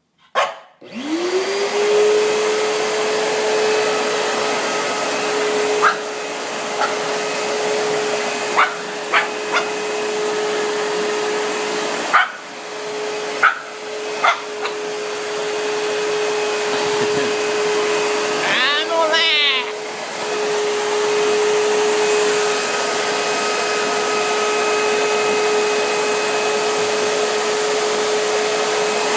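Vacuum cleaner switched on, its motor spinning up with a rising whine and then running steadily. A Shih Tzu barks short, sharp barks over it several times.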